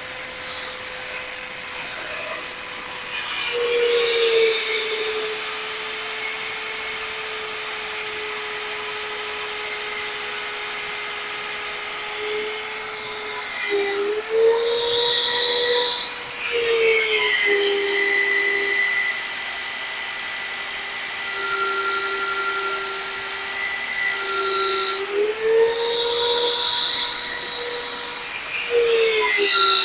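Vevor magnetic drill running an annular cutter through a steel truck frame rail, its motor giving a steady whine. The pitch sags and recovers a few times as the cutter bites under load. Louder stretches of high hiss come about halfway through and near the end.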